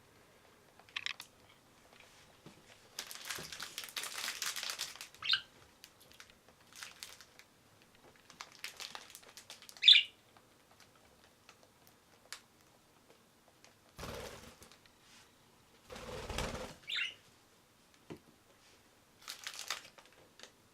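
Budgerigars giving a few short, high chirps among several bursts of rustling and crinkling.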